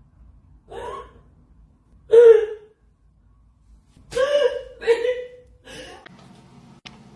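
A woman's voice making about five short gasping, squealing sounds, the loudest about two seconds in. A steady low hum comes in near the end.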